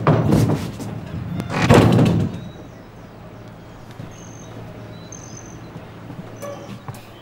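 Heavy thuds and crashing, like a person being beaten and slammed against wooden doors, for the first two seconds or so. Then it drops much quieter, with a couple of faint high chirps.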